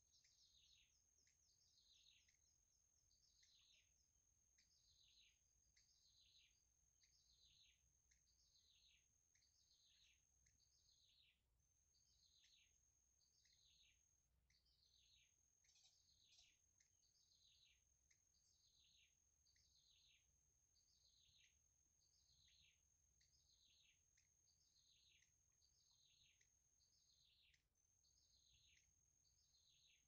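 Very faint bird call: a short chirp, falling in pitch, repeated about once a second, over a steady high-pitched whine that drops out briefly three times.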